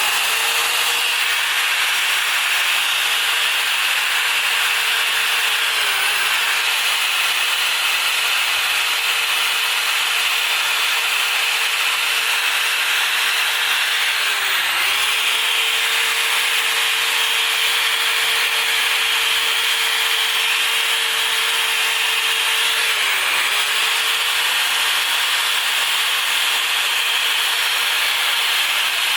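Power tool running steadily at high speed as it scours rust off a steel motorcycle exhaust pipe. Its pitch dips briefly three times.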